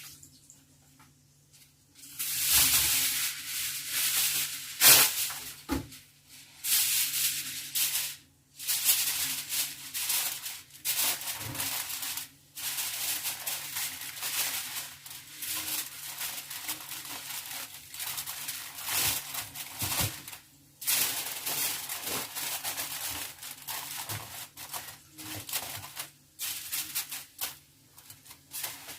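Aluminium foil crinkling and rustling as it is pressed loosely over a baking dish, in stretches with short pauses, starting about two seconds in.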